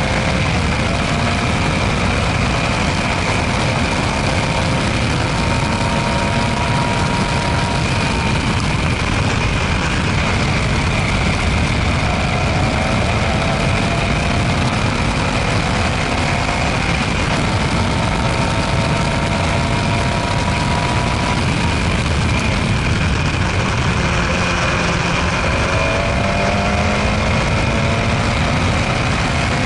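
Open-wheel single-seater racing car's engine at racing speed, heard from the cockpit over rushing wind. Its pitch climbs through each gear and drops back at several gear changes.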